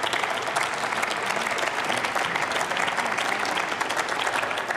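Applause: many people clapping steadily.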